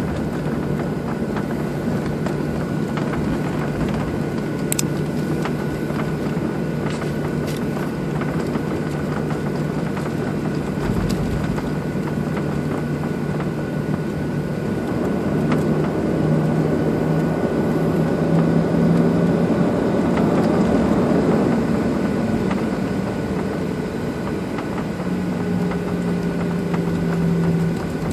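Steady engine hum and whine of a Boeing 737-800's CFM56-7B turbofans at taxi power, heard inside the passenger cabin. The low engine tone steps up slightly about halfway through, and a few faint clicks come early on.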